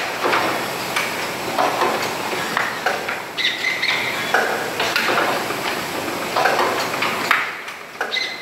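Automatic lid placing and tightening machine running on plastic jars: its pneumatically driven capping head works with short hisses and clacks that repeat about once a second.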